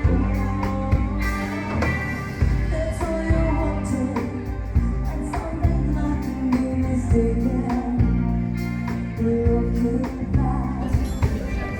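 Background music with singing over a steady beat, with bass and guitar.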